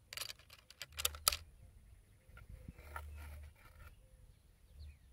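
A quick run of sharp clicks and knocks in the first second and a half, then a few faint ticks, over patches of low rumble.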